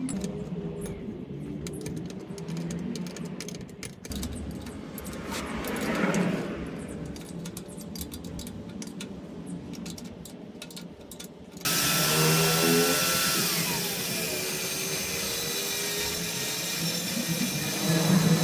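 Workshop sounds: a power tool running with many sharp clicks. About twelve seconds in it changes abruptly to a louder, steady hiss.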